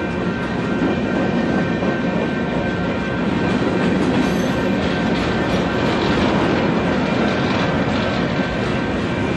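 Union Pacific freight cars rolling past at speed: a steady rumble of wheels on rail with a thin, high wheel squeal running over it.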